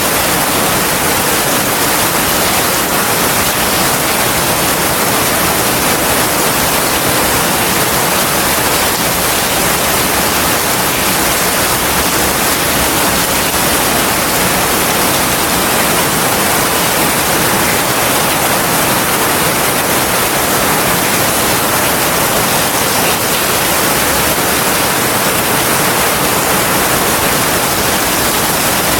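Heavy rain falling steadily: an even, unbroken hiss with no single drops or thunderclaps standing out.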